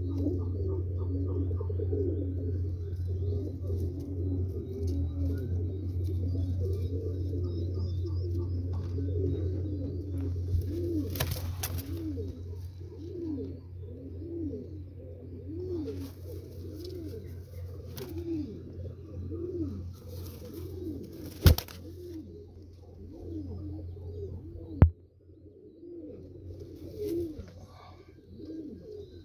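Pigeons cooing over and over, call after call, with a steady low hum underneath that stops near the end. A few brief rustles and two sharp knocks, the loudest sounds, come in the second half.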